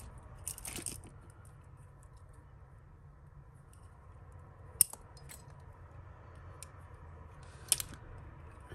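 Costume jewellery clinking and rattling as a plastic bangle is worked free of a tangle of beads and chains: scattered small clicks, with one sharp clink a little under five seconds in and a few more near the end.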